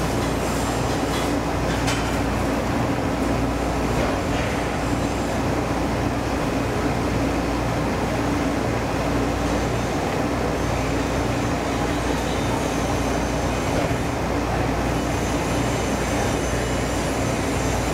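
Powered press of a guided-bend test jig running with a steady mechanical drone as its plunger slowly bends a MIG-welded steel test strip into a U for a root bend test.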